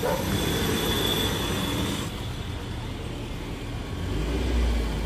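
Street traffic noise with a vehicle running close by. A high steady whine sounds for the first two seconds, and a low rumble rises near the end.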